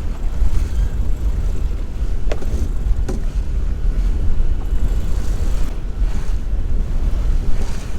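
Wind buffeting the microphone over the steady rush of water along the hull of a sailing yacht under way.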